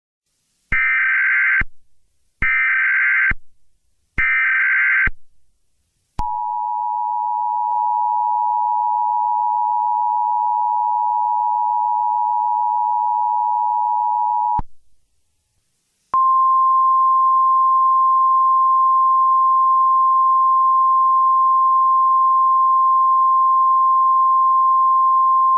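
Emergency Alert System tones: three short bursts of SAME header data, each about a second long, then the two-tone attention signal held for about eight seconds. After a second's pause comes a single steady alert tone lasting about ten seconds.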